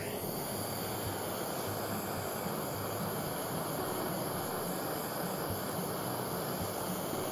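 Kitchen blowtorch flame lit at the start, then hissing steadily as it caramelises the sugar on top of a crème catalane.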